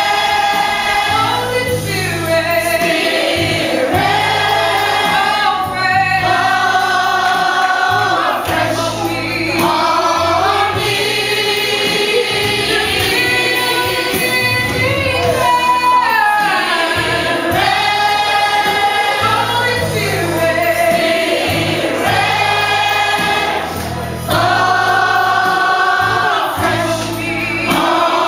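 Church gospel choir singing, long held notes and pitch slides in phrases of a few seconds, over a steady low accompaniment.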